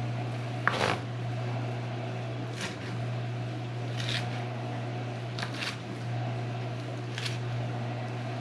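Chef's knife cutting raw triggerfish fillet on a plastic cutting board: about six separate knife taps on the board, the sharpest about a second in, over a steady low hum.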